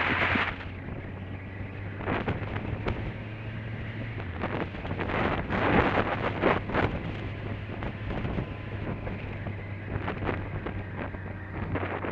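Motorcycle engine running steadily at cruising speed, heard from a camera on the bike, with wind buffeting the microphone in repeated gusts.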